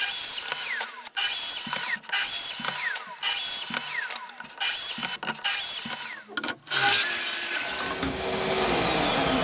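Festool TS55 plunge tracksaw cutting small pieces of wooden trim in a chop-saw jig: several short bursts of the motor and blade cutting, each stopping suddenly. After a last longer cut, the motor winds down with a slowly falling hum near the end.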